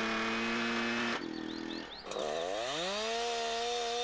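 Husqvarna two-stroke chainsaw engine revving at high throttle. About a second in it drops suddenly, then revs back up and holds high.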